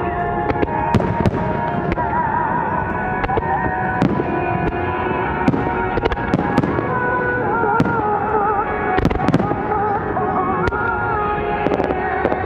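Starmine fireworks bursting: many sharp bangs at irregular intervals, over a melodic music soundtrack.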